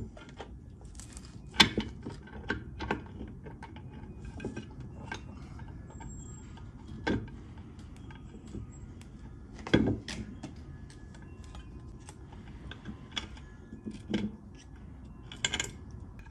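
Gears and shafts of a 1953 Dodge pickup's three-speed manual transmission clinking and knocking against each other and the case as they are worked by hand into line, with irregular metallic clicks and a few louder knocks, the loudest about a second and a half in and near the middle.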